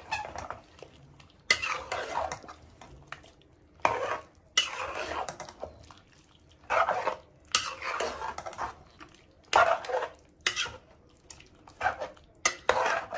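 A spoon stirring and scraping thick chicken curry with ground masala in a pressure cooker pot: about a dozen scraping strokes, spaced roughly a second apart.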